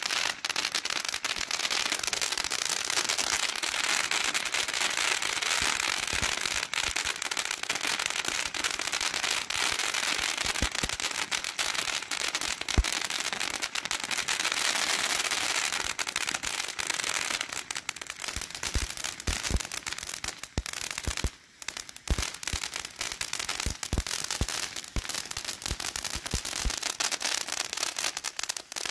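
Ground fireworks fountain (Winda Liberty Fountain) burning: a steady rushing hiss with crackling pops all through. After about 17 seconds the hiss thins and the crackles come through as separate sharp pops, with a brief lull about 21 seconds in.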